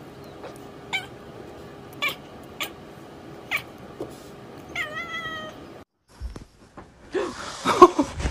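Domestic cat making a few short, sharp chirps about a second apart, then a longer meow around five seconds in. After an abrupt break, louder, rougher cat sounds near the end.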